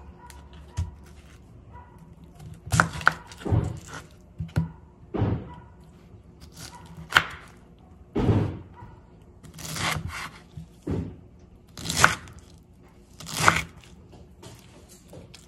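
Kitchen knife cutting through a slightly unripe, firm pineapple onto a wooden chopping board: about a dozen separate cuts, one every second or so, several ending in a sharp knock of the blade on the board.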